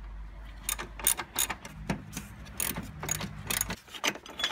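Hand socket ratchet clicking in quick, uneven runs of strokes as the engine mount bolts are loosened.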